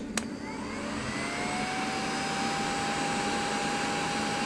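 Electric heat gun switched on with a click, its fan motor whining up to speed over about a second, then blowing steadily.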